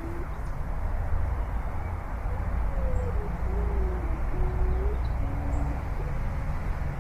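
Wind buffeting the microphone in a steady low rumble, with a wavering hoot-like tone that slides up and down several times.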